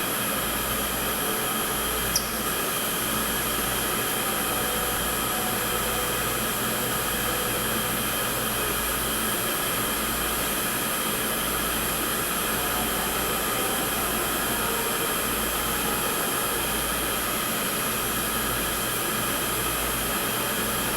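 Steady mechanical whir with a constant hum running through it, like a fan or motor, with one short high chirp about two seconds in.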